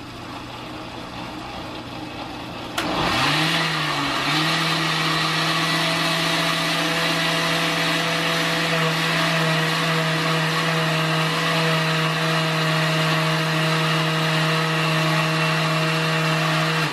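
Oster countertop blender switched on with a click about three seconds in, its motor spinning up and then running steadily as it purees strawberry and oat pancake batter, before winding down at the very end.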